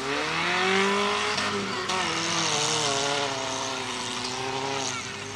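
Engines of several racing hatchbacks revving hard as they accelerate past. The engine note climbs in pitch over the first second, then holds and wavers, over a steady hiss of tyre and road noise.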